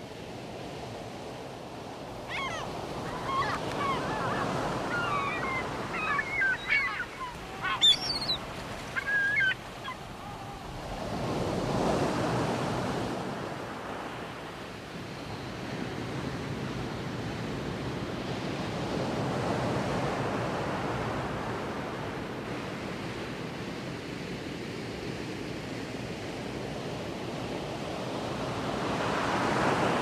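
Ocean surf with a steady rush that swells and fades several times. A run of short bird calls sounds over it in the first third.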